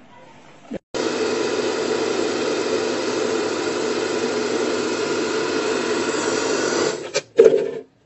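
Hand-held hair dryer running steadily, blowing into a plastic bottle that has hair wrapped around it. It starts abruptly about a second in and cuts off shortly before the end, followed by a brief loud burst.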